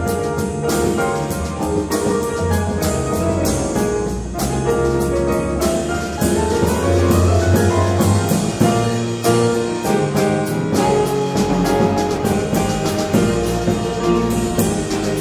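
Live jazz band playing a funky groove: piano chords and guitar over upright bass, with a drum kit and cymbals keeping a steady beat.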